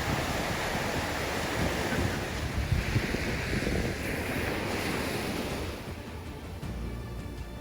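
Sea waves washing onto a shallow sandy beach, with wind buffeting the microphone; the wash eases about six seconds in.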